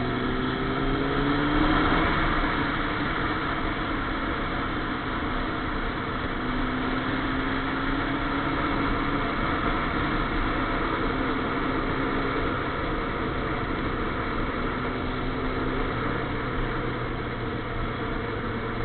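Sport motorcycle engine running at speed, buried in heavy wind noise on the microphone. Its note rises for about the first two seconds, then falls back and runs fairly steady for the rest.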